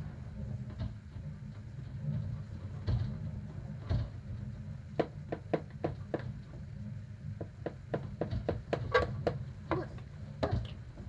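Hurricane-force wind roaring steadily against a house, with a run of sharp, irregular knocks and cracks starting about halfway through as the house takes the storm's battering.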